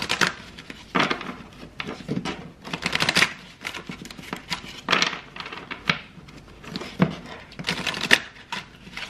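A deck of oracle cards being shuffled by hand, a short papery riffle of cards coming roughly once a second.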